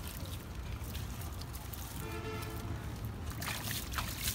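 Water splashing as it is scooped up by hand and thrown over a heap of freshly netted small fish, several splashes in the last second or so, over a steady low rumble.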